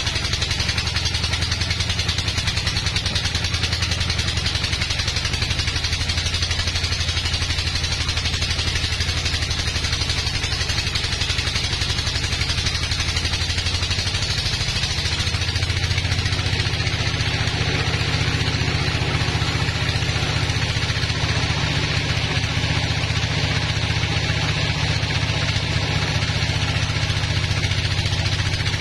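Band sawmill running through a thick hardwood log: a steady, loud machine hum with a hiss of the blade cutting. The hum shifts to a different pitch about halfway through.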